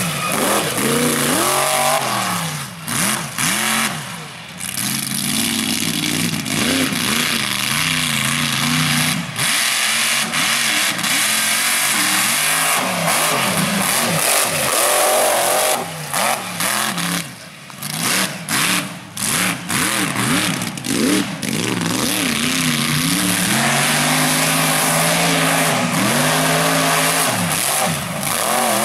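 Mud racing buggy's engine revving hard, its pitch climbing and falling again and again as the driver works the throttle. It eases off briefly a few seconds in and again about midway, with several quick throttle lifts.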